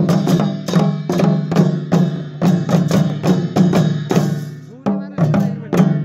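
An ensemble of double-headed barrel drums beaten with curved sticks, playing a fast folk rhythm of sharp strokes about three a second. The playing breaks off briefly a little after four seconds, then picks up again.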